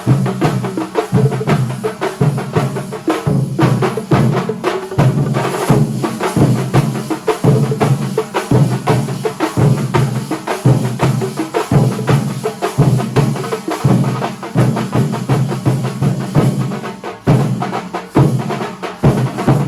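Kerala thambolam percussion troupe playing a fast rhythm: dense, sharp stick strikes over deep drum beats that pulse about once a second.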